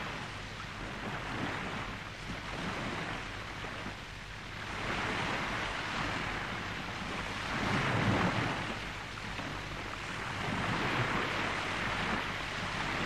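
Ocean surf breaking on a beach: a steady rush of water noise that swells and ebbs as each wave comes in.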